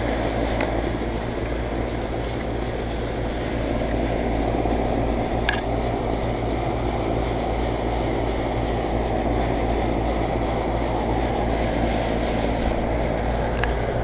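2004 Payne teardrop central air conditioner's 3.5-ton condensing unit running steadily: the Copeland reciprocating compressor hums under the whirr of the condenser fan. A single light tick about five and a half seconds in.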